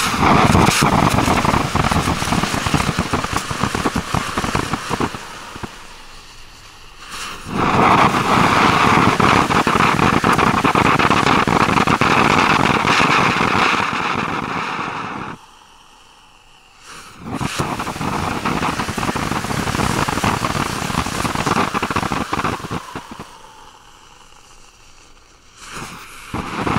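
Jumping Jelly Beans ground fountain firework spraying sparks and jumping stars with a loud hissing crackle. It comes in four long phases that die down between them, with the deepest break about two-thirds of the way in.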